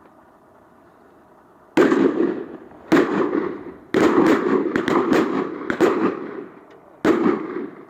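Shotguns firing at ducks, several guns going off: two single shots about a second apart, then a rapid string of nearly ten shots, then one last shot, each a sharp crack with a short echo.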